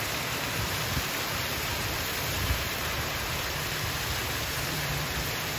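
Torrential typhoon rain falling steadily, with rainwater spilling over the gutter of a tiled roof in a heavy stream. The hiss of the rain stays even, with a low rumble beneath it.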